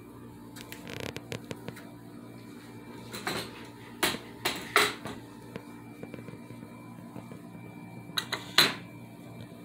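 Several short, sharp knocks and clicks, the loudest around four to five seconds in and again near the end, over a steady hum.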